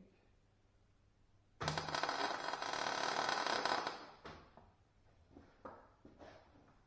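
Electric welding arc crackling in one burst of about two seconds that starts and stops abruptly, followed by a few light metallic knocks.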